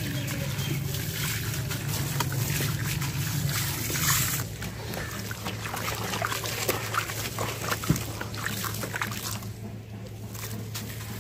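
Wet sand-cement chunk crushed in the hands, grit crackling and trickling into a tub of water for the first four seconds or so; then hands sloshing in the water with scattered small clicks, quieter near the end.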